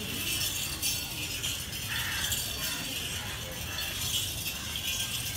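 Bells on a walking camel's harness jingling, swelling again and again at about once a second in time with its stride.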